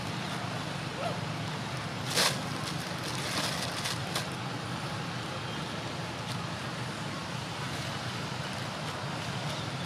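Steady outdoor background noise, a low hum under an even hiss, with a few short noises on top, the loudest about two seconds in.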